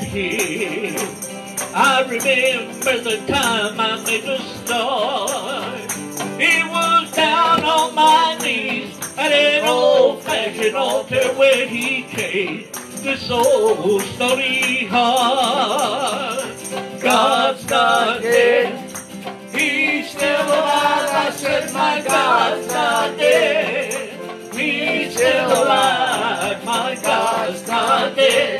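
Live gospel music: a woman singing and clapping along to a lap steel guitar.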